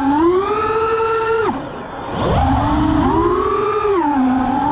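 Small FPV racing quadcopter's brushless motors (Emax 1606 3300kv) and 3-inch props whining, the pitch rising and falling with the throttle over a rush of wind. About a second and a half in the throttle is chopped and the whine drops away and goes quieter, then it climbs back up about a second later.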